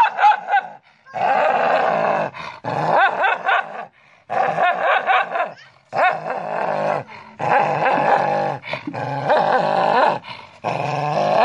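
A small dog snarling and growling in repeated bouts of a second or so with short breaks, an aggressive threat display at its own reflection in a mirror, which it takes for a rival dog.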